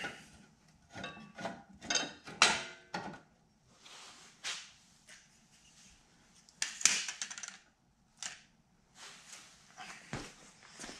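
Light metallic clinks and rattles of a cut aluminium disc being handled and seated against a metal frame and its clamps, some knocks leaving short ringing notes; the loudest come about two and a half seconds in and near seven seconds.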